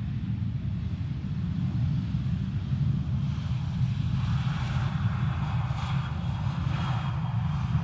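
Airbus A319's CFM56 jet engines rumbling as the airliner rolls down the runway after touchdown, the jet noise growing louder from about three seconds in.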